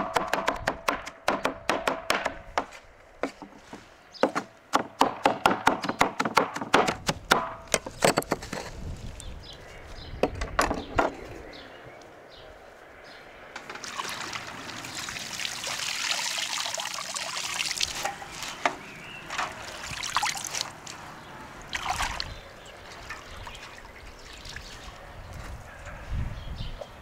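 A cleaver chopping a heap of fresh leafy greens and herbs on a board in quick, rapid strokes that stop about a third of the way in. Later, hands swish and lift the greens in a metal basin of water, with splashing and dripping.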